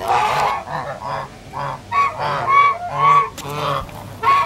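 A group of domestic geese honking: a rapid run of short, overlapping honks, several a second.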